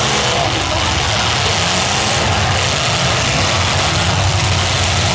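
Demolition derby car engines running, a loud steady low drone with dense noise over it.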